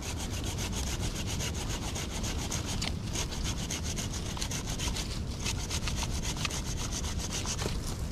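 Hand saw cutting through a branch for firewood, in fast, steady back-and-forth strokes.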